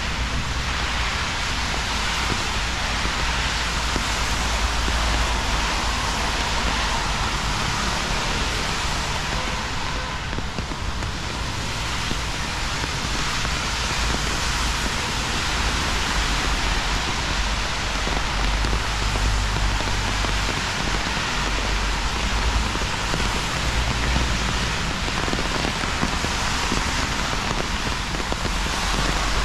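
Steady rain falling: an even, unbroken hiss, with a low rumble underneath.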